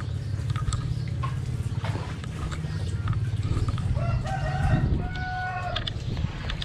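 A rooster crows about four seconds in: a long, even call in two parts. Beneath it are a steady low rumble and scattered small splashes and slaps of fish thrashing in shallow water.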